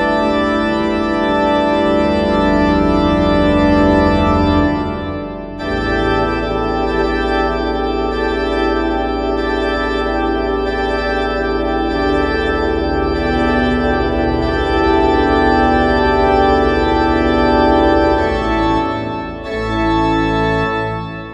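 Pipe organ playing a toccata in loud, sustained full chords over a deep pedal bass, with a brief break about five seconds in before the next chord enters.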